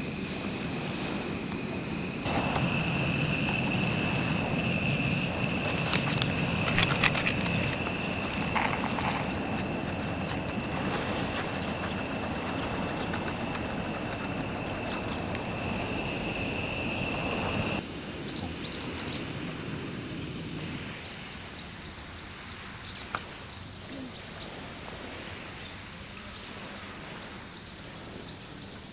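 Seaside outdoor ambience: a low wash of waves and wind under a steady high-pitched insect chorus. A few light clicks and rustles of handling come about a quarter of the way in, and one sharp click comes about three-quarters of the way through.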